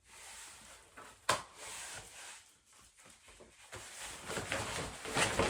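Packaging being handled as a cardboard box is unpacked: a sharp knock about a second in, then rustling and crinkling that grows louder toward the end.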